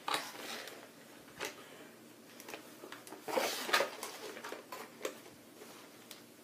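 Hands handling plastic and cardboard toy packaging while working at the plastic ties that hold a small item in the box: scattered clicks and rustles, with a louder flurry about three and a half seconds in.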